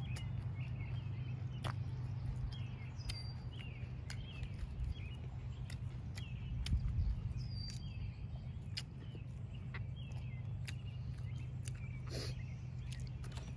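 Outdoor ambience of small birds chirping in short, repeated calls, over a steady low rumble. Scattered sharp clicks and crunches from people eating crisp raw vegetables and handling food on foil.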